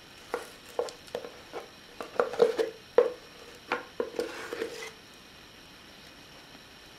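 A kitchen spatula knocking and scraping against a mixing container, about a dozen sharp taps in quick, uneven succession. The taps stop about five seconds in.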